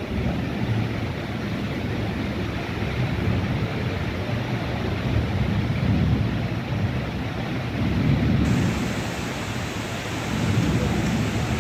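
Heavy rain pouring steadily, with a low rumble that swells and fades several times.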